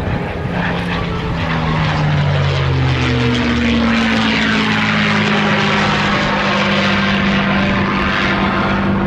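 P-51 Mustang's Rolls-Royce Merlin V12 engine and propeller on a loud, high-speed pass, its pitch dropping as it goes by over the first three seconds or so, then a steady drone.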